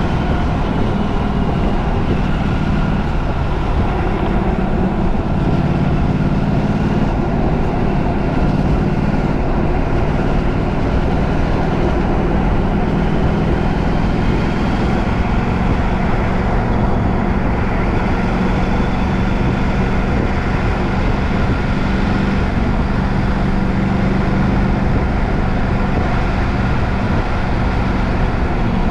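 Steady running noise of a moving vehicle: a continuous low hum with faint tones that drift slowly in pitch.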